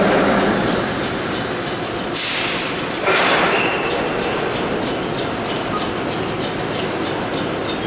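Vintage 1930s R1–R9 'Arnine' subway cars moving slowly through the station. A short hiss of air comes a little over two seconds in. About a second later there is a high-pitched squeal lasting under a second, then a steady rumble of wheels with regular clicks over the rail joints.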